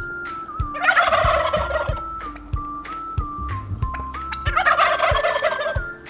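Turkey gobbling twice, each gobble lasting over a second, with a light tune plinking underneath.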